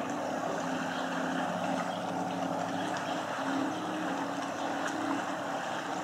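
Steady low drone of a motor running, over a constant hiss.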